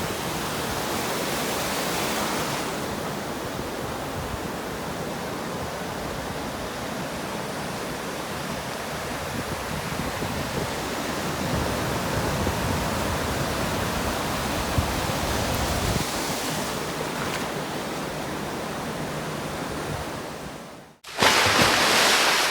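Ocean surf breaking and washing in a continuous rush that swells and eases a few times. Near the end it cuts out for an instant and comes back louder.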